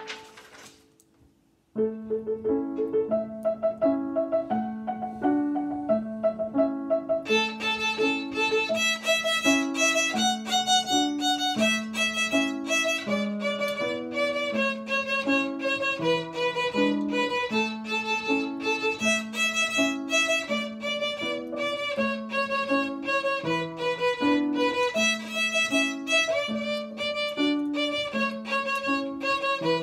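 Violin playing: after a short pause near the start, the music resumes with a repeating lower figure, and a brighter melody line joins about seven seconds in.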